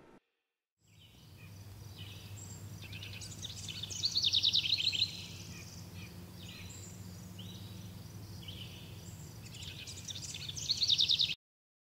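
Forest ambience: rapid, high-pitched trilling calls from birds and insects, loudest about four seconds in and again near the end, over a steady low hum. It cuts off suddenly near the end.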